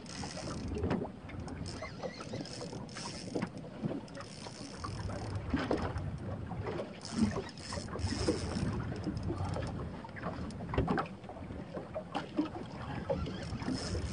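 Water slapping against the hull of a small boat, with wind on the microphone and scattered irregular knocks.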